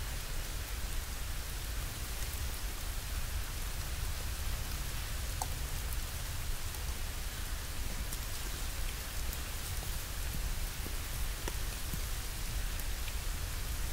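Steady wind noise in a snowy forest, rumbling on the microphone, with a few faint scattered ticks.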